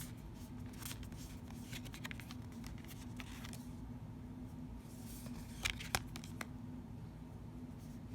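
Slippery-finish oracle cards being handled one at a time: faint scattered rustles and clicks, with two sharper clicks a little after the middle, over a steady low hum.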